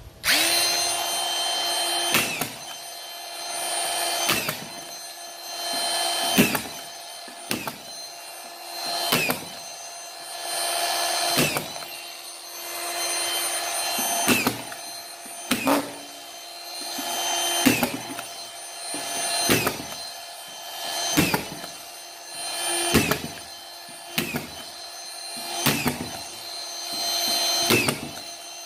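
Hilti SD 5000-A22 cordless drywall screwdriver with a collated-screw magazine driving screws through ceiling plasterboard into timber, one after another. The motor whines steadily, and its note swells as each screw goes in, then ends in a sharp click, roughly once every one and a half to two seconds.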